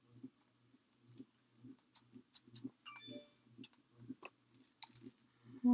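A few sharp clicks from a small pump spray bottle of shimmer mist being pressed over paper, with a faint low pulsing repeating underneath. Right at the end, a short hummed voice tone, the loudest sound here.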